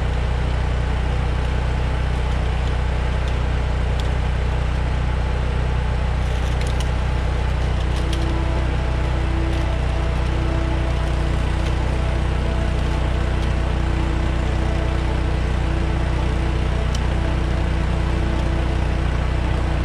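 Engine idling steadily with a deep, even hum, with a few faint clicks over it.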